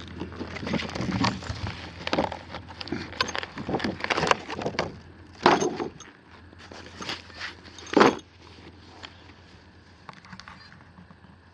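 Packaging being pulled off a plastic tool case by hand: irregular rustling, crackling and clicks, with two louder knocks about five and eight seconds in, going quieter near the end.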